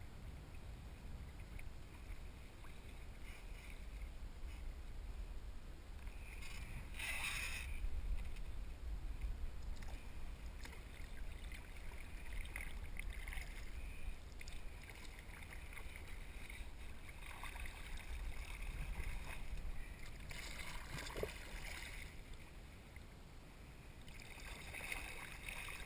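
Kayak paddle strokes splashing and swishing in the water every few seconds, over a steady low rumble.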